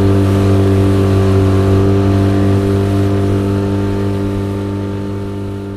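Yamaha 20 hp outboard motor running at a steady high throttle, pushing a small boat across the water. It holds one even pitch and fades a little toward the end.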